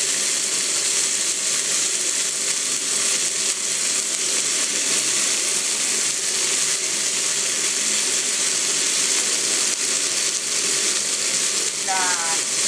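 Chicken pieces and sausages frying on a hot cast-iron griddle plate over a gas flame: a steady sizzling hiss of fat spitting on the metal.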